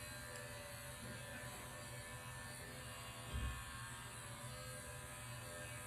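Mary Kay sonic facial cleansing brush running against the skin: a steady, faint electric buzz, with a brief low thump a little past halfway.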